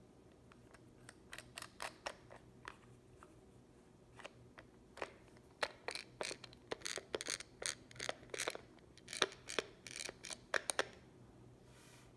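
Hand-twisted pepper mill turning its grinder, with a run of short, irregular scratchy clicks that are sparse at first and come quickly from about halfway through. The grinding mechanism is turning again on its repaired drive piece, a homemade replacement made from a lawnmower oil dipstick.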